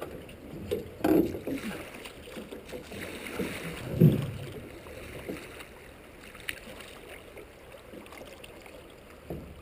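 Drift-boat oars dipping and pulling through river water, with a loud splash about four seconds in as an oar blade digs in.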